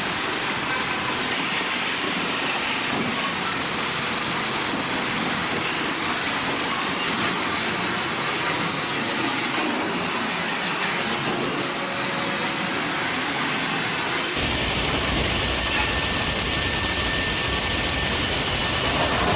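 Sawmill production-line machinery running steadily, a loud, even clattering and rumbling of conveyors and rollers. About 14 seconds in the sound changes abruptly to a heavier, lower rumble.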